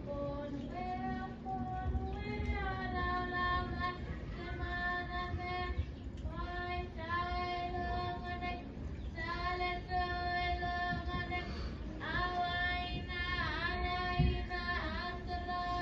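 A single high voice singing a slow song with long held notes, phrase after phrase, with a few short breaks between phrases and a wavering pitch near the end.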